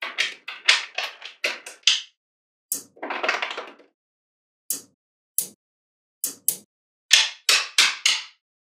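Small magnetic balls clicking and snapping together as strips of spheres are pressed onto a magnet-ball block: sharp clicks in quick clusters, with a longer rattle of balls about three seconds in and a few single clicks after it.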